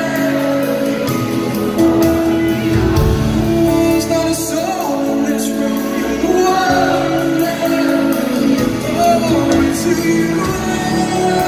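Live worship band playing in a large hall: acoustic guitar and band with singing, heard from within the audience.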